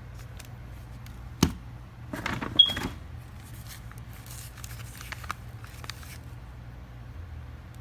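Firework boxes being handled: a single sharp knock, then about a second of rustling and clattering with a brief squeak, followed by a few light clicks.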